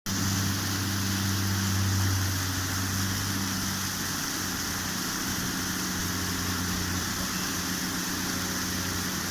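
Steady hiss of rain and rushing water, with a low, steady hum of an idling engine underneath that is strongest for the first few seconds.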